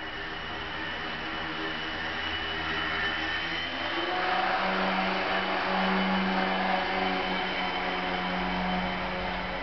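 Small electric motor and propeller of an indoor radio-controlled foam biplane, a steady whine whose pitch shifts with the throttle. It gets louder about four seconds in as the plane hovers close by.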